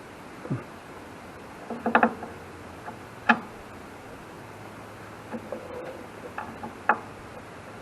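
Scattered clinks and knocks of hand work on metal parts. There are about half a dozen irregular strikes, with a sharp click about a third of the way in and a louder knock near the end.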